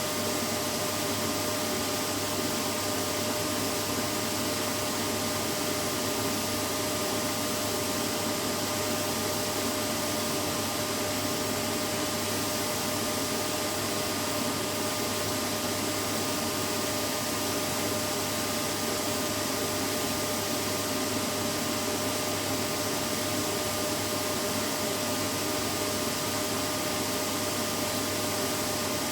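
Vacuum cleaner running steadily: an even rushing of air over a constant motor hum, with no change in pitch or level.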